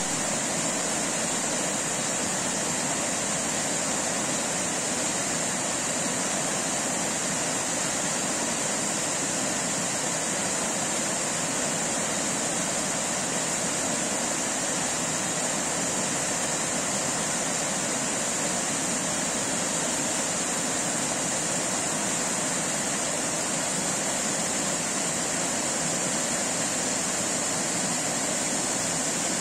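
Creek rapids: white water pouring steadily over a fallen log and rocks, an unbroken rush of water noise.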